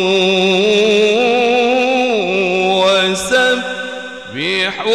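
A male qari's solo voice in melodic Qur'an recitation into a handheld microphone, drawing out one long wavering note at the end of a verse phrase. The note steps down in pitch about two seconds in and breaks briefly just past three seconds. Near the end the voice swoops upward into the next phrase.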